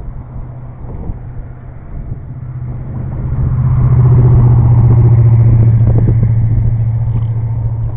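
Boat motor running with a steady low hum, growing louder about three seconds in and easing off slightly near the end.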